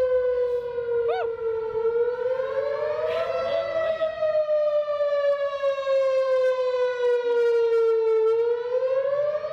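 Outdoor warning siren sounding a test signal, a single steady pitched tone. It falls slowly in pitch, rises about two to three seconds in, falls slowly for several seconds and starts rising again near the end.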